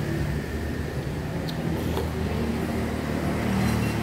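Steady low rumble of street traffic and engines, with a couple of light clicks about halfway through.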